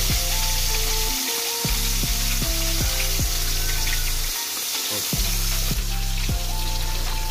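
Pieces of fish sizzling steadily in hot cooking oil in a wok as they are slid in and stirred, over background music with a repeating bass line.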